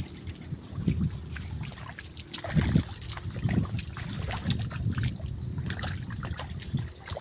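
Feet wading through shallow tidal water: irregular sloshing and splashing with low thuds, a stronger surge about two and a half seconds in.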